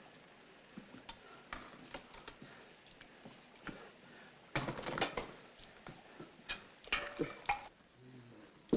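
Scattered clinks and knocks of bowls and utensils being handled, with small clusters of clatter about halfway through and again a couple of seconds later.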